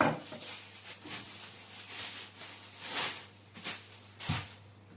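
A handful of short kitchen scrapes and knocks, about one a second, as food is handled at the counter.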